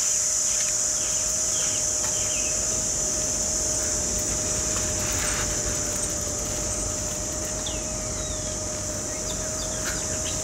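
Outdoor ambience: a steady high-pitched drone of insects, with short bird chirps scattered through and a faint steady hum underneath.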